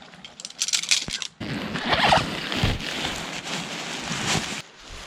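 A zipper pulled in a few quick strokes, then about three seconds of rustling and handling noise that stops abruptly near the end.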